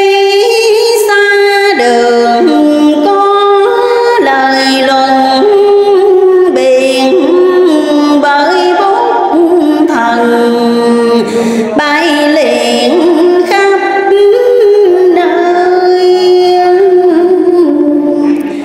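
A single high voice chanting Vietnamese verse in ngâm style, a slow melodic recitation with long held notes and gliding changes of pitch.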